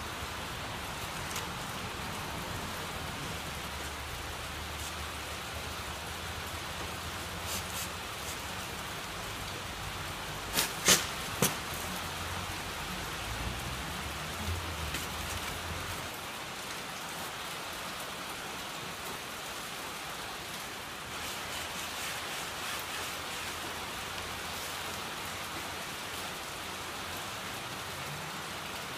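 Steady hiss of rain. About eleven seconds in come three sharp knocks as the engine block is worked off the gearbox.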